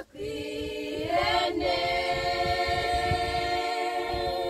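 Young women's choir singing a cappella: after a brief break at the start, the voices come in and hold one long chord.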